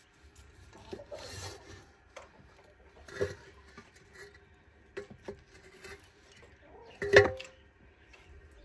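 A wooden poker scraping and knocking a metal plate over the ash in a clay tandoor. Scraping comes about a second in, a knock about three seconds in and a few light taps, then the loudest clank about seven seconds in, with a short metallic ring.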